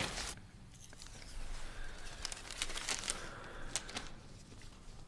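Soft paper rustling and crinkling as a folded paper note is opened by hand, with a few short crackles around the middle.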